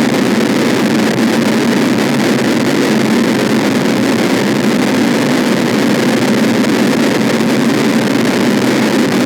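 Harsh noise wall: a loud, dense, static wall of distorted noise that does not change in texture, heaviest in the low-middle range.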